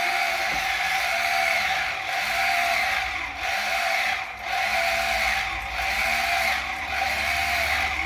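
Electric citrus juicer's motor whirring steadily while an orange half is pressed onto the spinning reamer, its pitch dipping and recovering about once a second under the load of the pressing.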